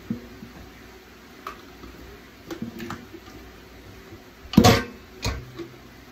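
Metal spoon scooping cooked potato cubes in an aluminium pot, with light scrapes and knocks and one loud ringing clank of spoon on pot a little past halfway, followed by a second knock.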